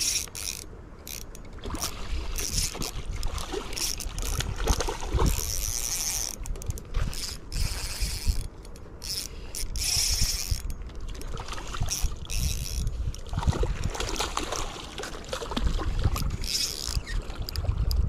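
Spinning reel being cranked to retrieve line with a trout on, the reel's gears whirring and clicking in irregular spells, over a low rumble of wind on the microphone.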